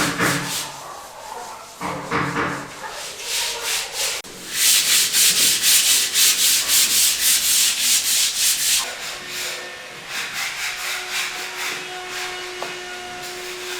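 Rough rubbing or scraping strokes of hand work on a building site. A few separate strokes come first, then a fast, even run of about four strokes a second from about four to nine seconds in. Lighter strokes follow, over a faint steady hum.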